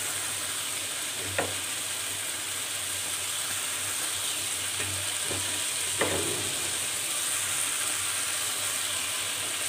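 Tomato-based curry masala with potatoes and carrots sizzling steadily in a steel pan, with a few light knocks as diced capsicum and chopped onion go in, two of them sharper, about a second and a half and six seconds in.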